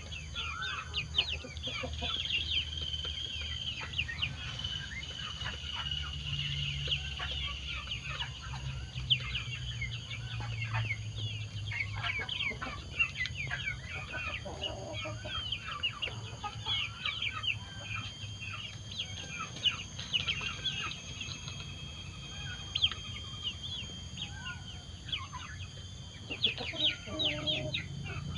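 Young village chickens and turkey poults peeping and clucking as they feed: many short, high chirps come one after another, with a steady high whine in the background at times.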